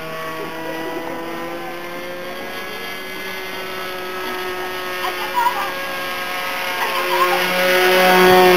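Evolution .46 two-stroke glow engine of a Tribute 36 RC airplane running steadily at high revs in flight. It grows louder near the end as the plane passes close by, and its pitch starts to drop as it goes past.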